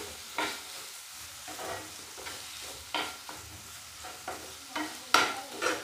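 Spatula stirring and scraping chopped tomato, onion and green chillies around a non-stick frying pan, in strokes about once a second, over a light steady sizzle of the frying oil.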